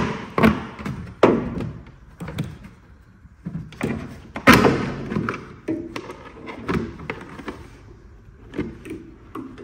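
Plastic scuttle panel beneath a car's windscreen being prised up with a plastic trim tool: an irregular series of sharp plastic snaps and knocks as its clips pop free, the loudest about halfway through.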